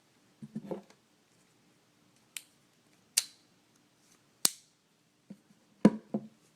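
Sharp metallic clicks of a folding hunting multi-tool being handled while its saw blade is opened: four separate clicks a second or so apart, the loudest near the end, with faint handling rustle.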